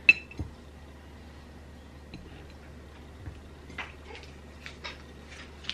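A sharp click right at the start and a smaller one just after, then faint scattered ticks and light handling noises as small candy-kit pieces and a dish are handled on a table, over a low steady hum.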